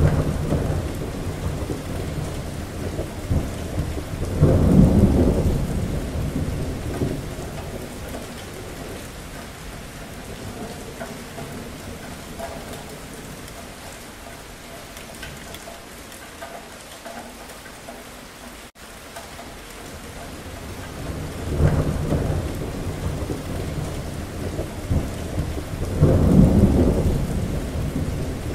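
Steady rain with repeated rolls of thunder: a rumble right at the start, the loudest about four to six seconds in, a quieter spell in the middle, then two more rumbles near the end.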